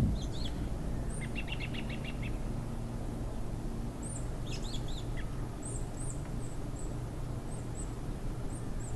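Small birds chirping in short bursts, including a quick run of notes about a second in and thin very high calls in the second half, over a steady low background hum.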